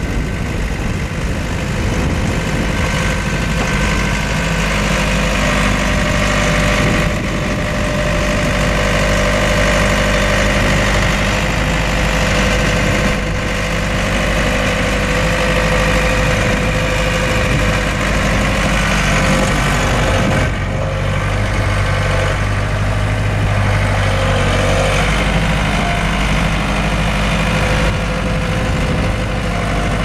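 Case 1845C skid steer's Case 4-390 four-cylinder diesel engine running steadily as the machine is driven and turned on dirt.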